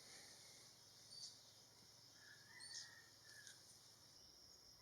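Faint natural ambience: a few short, high bird chirps spread through it, and a thin, steady, high insect buzz that starts near the end.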